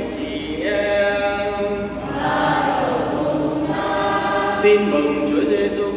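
Catholic liturgical chant: several voices singing long held notes.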